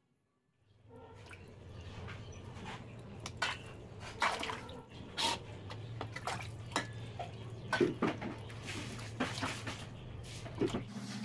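Water sloshing and dripping as raw chicken pieces are rinsed by hand in a stainless steel bowl, with many sharp splashes, over a low steady hum. It starts about half a second in.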